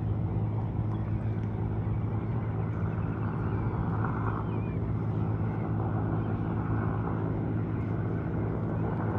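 Military helicopter flying, a steady low drone of engine and rotors.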